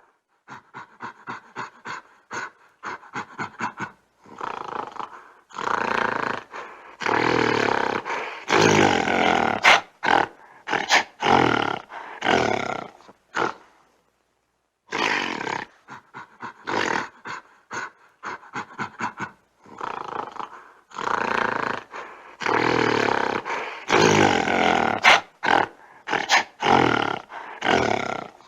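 Gorilla growling: a run of quick rhythmic grunts, about four or five a second, that builds into long, loud growls. After a short silence about halfway through, the same sequence plays again.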